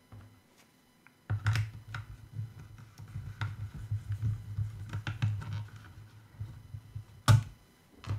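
Hands handling the plastic body and small parts of a drone, making a run of light clicks and taps over a low handling rumble. There is a sharp click about a second and a half in and another near the end.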